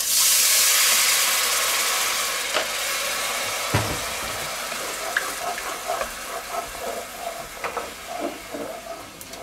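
Vegetable broth poured into a hot cast-iron Dutch oven over frying tomato-pepper paste: a loud hiss starts at once and slowly dies down into a quieter sizzle with small pops. A single knock comes about four seconds in.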